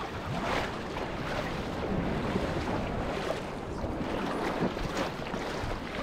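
Sea water splashing and sloshing around a paddleboard as it is paddled and kicked through shallow waves, with wind buffeting the microphone. Irregular small splashes stand out over a steady rush of water and wind.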